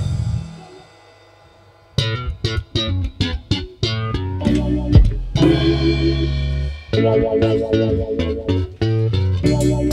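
A band finishes a song, its last sound dying away within the first second; after a short pause a new song starts about two seconds in with quick plucked guitar notes over bass guitar.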